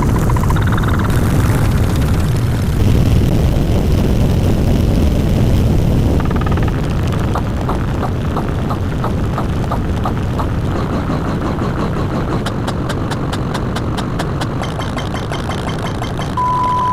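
A run of sound effects over a loud, low rumble. About seven seconds in, regular clicks come in at roughly three a second, then faster, sharper clicks follow, and a steady high beep starts near the end.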